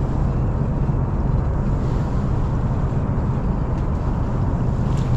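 Boat motor running steadily at low speed, a constant low hum with no change in pitch.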